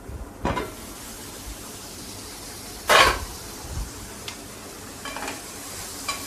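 Bitter gourd and onion slices sizzling steadily in a pan, with one loud clatter about three seconds in as the glass lid comes off, then a spatula stirring and scraping the pan with a few light knocks.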